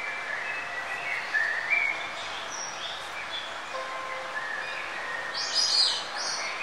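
Birds chirping and singing over a steady background hiss, with a few faint held tones; the loudest run of chirps comes about five and a half seconds in.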